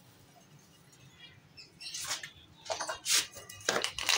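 A plastic jar of pigeon grain being handled, with short rattling and scraping noises about five times in the second half as the jar is grabbed and its screw lid gripped.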